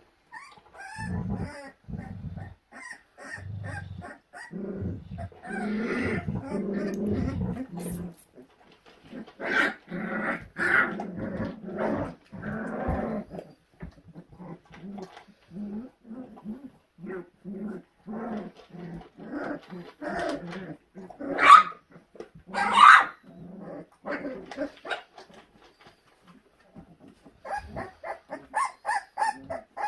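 A litter of young Australian Shepherd–Hanging Tree cross puppies play-fighting, with many short puppy growls, whines and yips. Two louder, higher yelps come about two-thirds of the way in.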